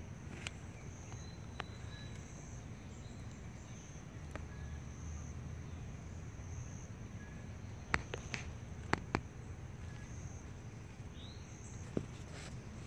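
Insects calling in a steady, high, pulsing chorus, with a few short chirps over it. A handful of sharp clicks come about eight to nine seconds in and once more near the end.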